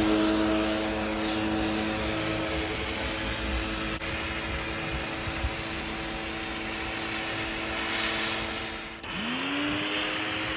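Gerni 3300 electric pressure washer running, a steady motor and pump hum over the hiss of the water jet. About nine seconds in, the motor briefly cuts out and spins back up with a rising whine.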